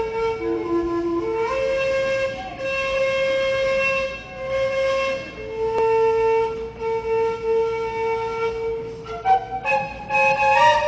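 Instrumental music: a woodwind melody, flute-like, of long held notes that moves into quicker notes near the end.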